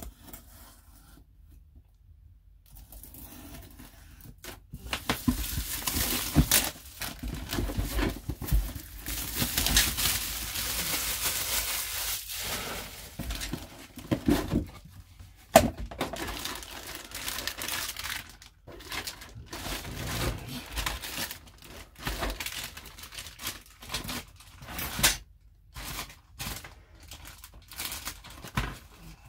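A cardboard plastic-model kit box being opened and handled, with the clear plastic bags of parts inside crinkling and rustling, and occasional sharp knocks. The rustling starts a couple of seconds in.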